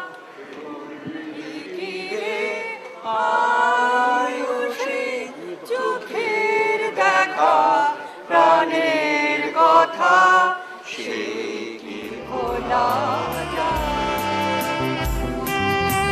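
A group of voices singing a song without accompaniment, in phrases with short breaks. About three-quarters of the way through, the singing gives way to instrumental music with a bass line.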